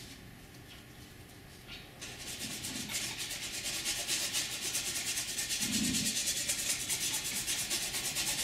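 A paintbrush scrubbing paint onto a canvas in quick, rhythmic back-and-forth strokes. It starts about two seconds in and grows louder.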